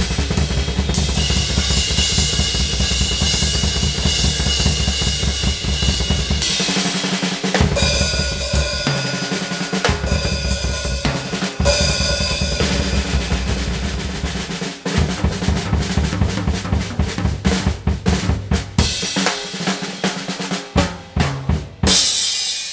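Drum solo on a Pearl drum kit: dense rolls over snare, toms and bass drums with cymbals, breaking into separate accented hits with gaps in the second half, and ending on a ringing cymbal wash.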